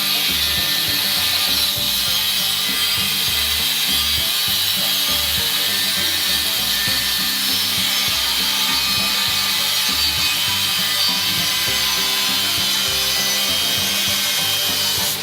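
Forged steel knife blank being cut through, a steady harsh sawing noise, with background music underneath.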